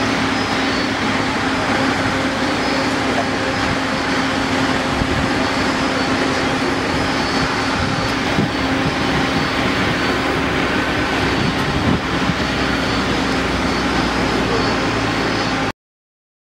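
Aircraft turbine running steadily: a loud, even rush with a constant whine. It cuts off suddenly near the end.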